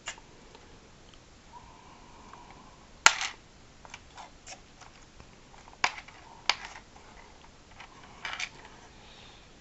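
Scattered sharp plastic clicks and snaps from a Jazwares Micro Galaxy Squadron Inquisitor Transport Scythe toy starship as its wings are folded and moved into position. The loudest click comes about three seconds in, with several lighter ones after it.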